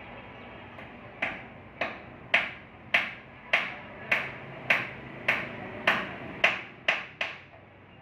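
A hammer striking in a steady run of about a dozen sharp blows, roughly two a second, each with a short ring; the last few come quicker.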